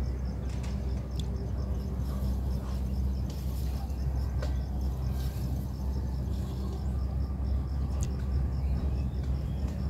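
Outdoor ambience: a steady low rumble with an insect's fast, even chirping high above it, and a few faint clicks.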